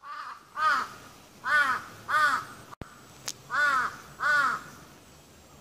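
A crow cawing: a faint call at the start, then five loud caws, one alone and then two pairs, each caw rising and falling in pitch.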